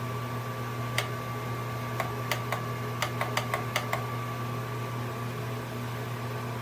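Plug-in wall-outlet space heater's fan running with a steady hum, with a string of about ten light clicks in the middle.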